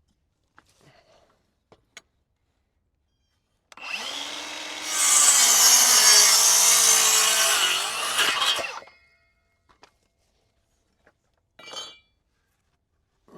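A power saw starts up and cuts into a wooden board for about four seconds, its motor pitch sagging under the load, then stops. Brief faint knocks and rustles of boards being handled come before and after.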